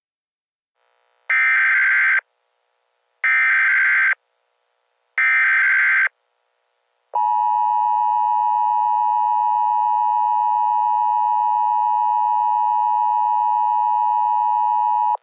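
Emergency Alert System tones: three short, buzzy bursts of SAME header tones about two seconds apart, then the long, steady two-tone attention signal for about eight seconds, stopping abruptly. Together they announce that an emergency alert message is about to be read.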